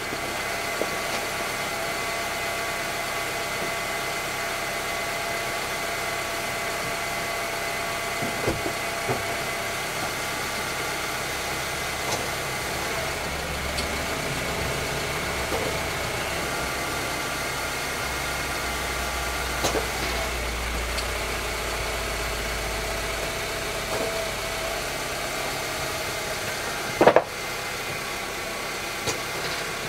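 2010 Honda Civic's petrol engine idling steadily. A deeper rumble swells for several seconds in the middle as the car is driven slowly a short way. A sharp knock comes near the end.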